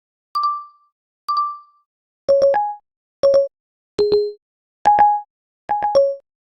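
A run of short iPhone system sound effects played one after another with dead silence between them: two identical single beeps, then five quick two- and three-note electronic blips.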